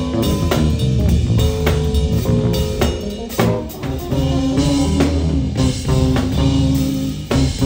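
Live band music: electric guitar and electric bass playing over a drum kit, with steady drum hits and sustained low bass notes.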